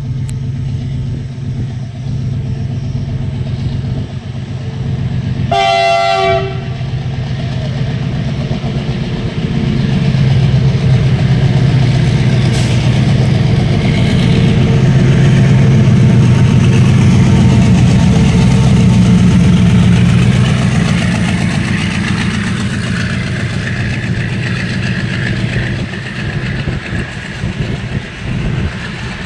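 WDG-6G diesel locomotive under full throttle, its engine growing louder as it approaches and passes. It gives one horn blast of about a second some six seconds in. After the locomotive passes, the container wagons roll by with a steady rumble and clatter of wheels on rail joints.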